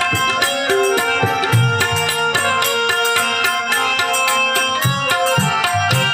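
Instrumental passage of the ghazal melody played on harmonium, its held reed notes sounding over tabla accompaniment with deep bass-drum strokes.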